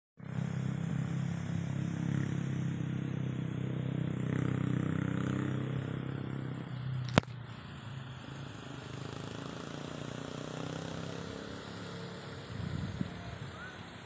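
A small engine running steadily as a low hum, louder for the first half. A single sharp click comes about seven seconds in, after which the hum continues more quietly.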